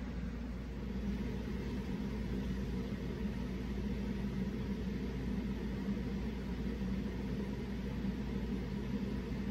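Small electric motor of a rotating mirrored display turntable, humming steadily as it turns, getting a little louder about a second in.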